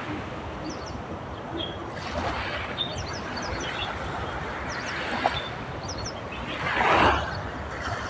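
Small birds chirping in short high calls, a few at a time, over a steady outdoor rumble. A louder rushing swell of noise builds and fades about seven seconds in.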